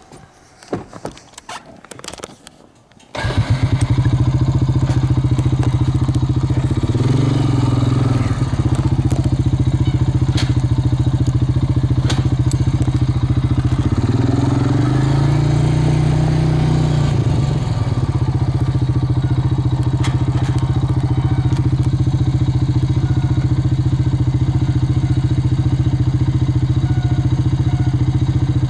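A motor vehicle's engine starts about three seconds in, then runs steadily, rising in pitch twice as it is revved or pulls away. A few clicks and knocks come before it.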